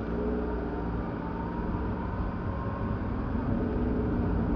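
Car driving, with steady engine and road noise heard from inside the cabin and a faint, nearly even hum.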